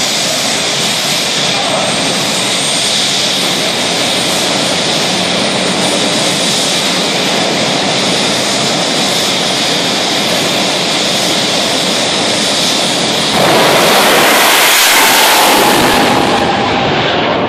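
Jet dragster's turbine engine running at the start line, a steady high whine over a loud rushing. About thirteen seconds in it suddenly goes to full thrust with a much louder blast as the car launches, fading over the next three seconds as it pulls away down the track.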